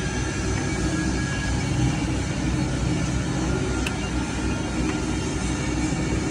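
Ribbon blender running: a steady mechanical drone from its drive as the ribbon agitator turns through powder in the steel trough.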